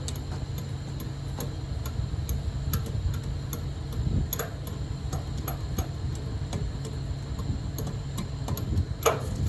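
Heavy machinery running with a low steady drone, overlaid by scattered light metallic ticks and two louder clanks, about four and nine seconds in.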